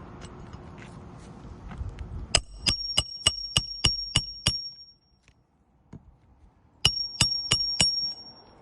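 Something metal struck repeatedly: eight sharp strikes about three a second, then after a pause four more, each leaving a high ringing tone.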